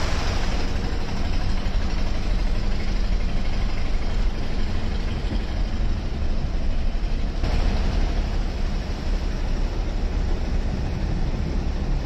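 Road traffic in floodwater: a steady, low engine rumble with an even hiss of tyres moving through standing water. The hiss brightens about seven and a half seconds in.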